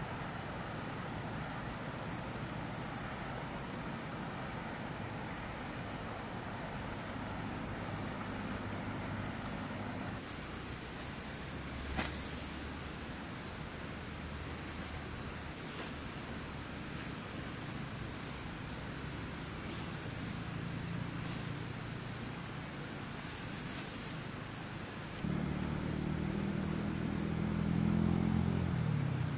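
Steady high-pitched drone of insects, with a single sharp knock about twelve seconds in. Near the end a low, engine-like hum rises and becomes the loudest sound.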